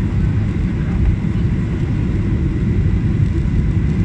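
Boeing 737-800's cabin noise on approach: a steady low rumble of its CFM56 jet engines and the airflow, heard from inside the cabin, with a faint steady high whine.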